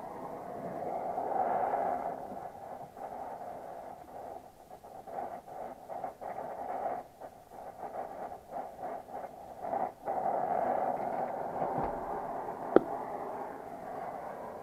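Brazing torch flame hissing steadily at a copper refrigerant joint on the expansion valve as it is brazed; the hiss wavers and dips in the middle, then steadies again. A single sharp click near the end.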